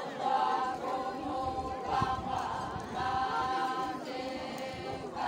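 A group of Konyak Naga women chanting in unison as they dance, singing long held notes in phrases of about a second each with short breaks between them.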